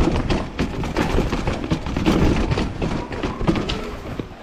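Mountain bike rattling and knocking over rough ground on a fast descent, with a heavy, uneven rumble and many short irregular knocks.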